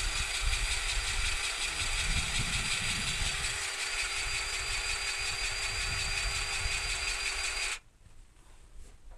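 An engine running steadily at idle, then stopping abruptly about eight seconds in.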